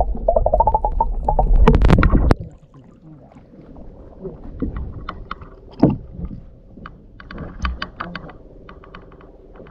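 Muffled low rumble and rapid clicking of water on a camera held underwater, cutting off sharply about two seconds in. Then quieter water lapping and splashing around a small wooden outrigger boat's paddle and hull, with a few sharper splashes or knocks.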